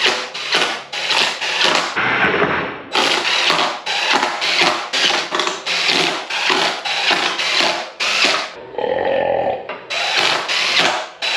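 Cordless drill (screw gun) driving screws into the scooter's deck, running in a rapid string of short bursts, about three a second, with a couple of longer steady runs of the motor.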